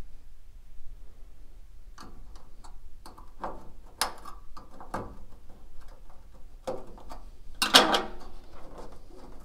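Scattered small metal clicks and scrapes as the retaining clip on the lower mount of a hood gas strut is worked loose, with a louder rattle about eight seconds in.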